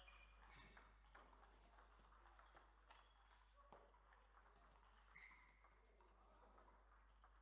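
Faint, irregularly spaced clicks of celluloid table tennis balls hitting bats and the table, with a brief squeak about five seconds in.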